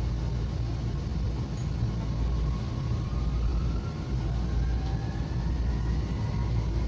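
Tokyu Setagaya Line 300 series car pulling away from a station, heard from inside the car: its electric traction motors give a whine that climbs steadily in pitch as the car gathers speed, over a low running rumble.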